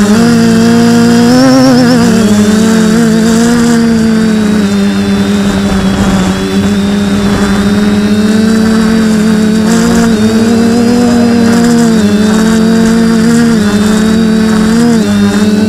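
Motors and propellers of an F450 quadcopter humming steadily in flight, loud and close as heard from a camera mounted on the frame. The pitch briefly dips and rises a few times, near the start and several times in the second half.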